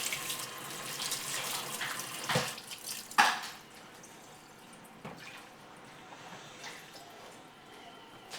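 Water running and splashing as waterstones are rinsed between grits, with a sharp knock a little after three seconds in, then quieter scattered drips.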